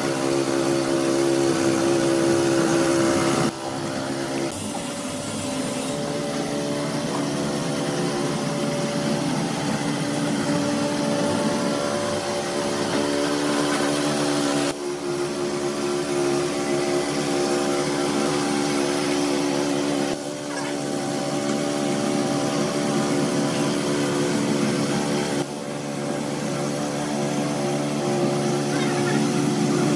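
Small gasoline mini tiller (cultivator) engine running steadily as its tines churn a loose sand-and-cement floor mix. The sound breaks off and jumps abruptly a few times.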